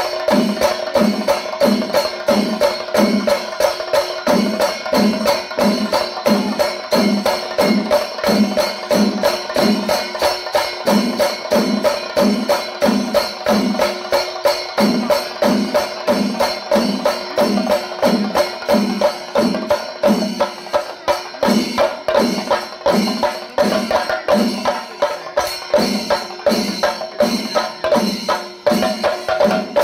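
Chenda melam: a large ensemble of chenda drums struck with sticks, with elathalam hand cymbals clashing along, playing a fast continuous rhythm with a deep beat about twice a second.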